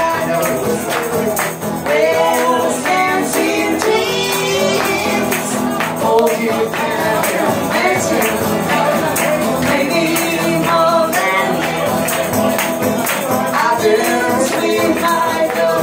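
Live acoustic duet: a woman singing and beating a handheld tambourine-style frame drum, with a man singing along and playing an acoustic guitar.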